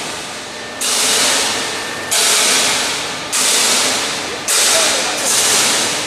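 CNC press brake hissing in four bursts a little over a second apart, each starting suddenly and fading away, as it works through its bending cycle.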